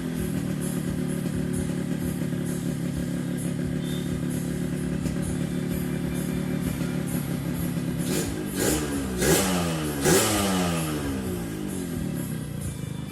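Yamaha RX-King's two-stroke single-cylinder engine running steadily with a snoring intake note from its open 'ngorok' air filter. About two-thirds of the way in it is blipped three times in quick succession, each rev rising sharply and falling back.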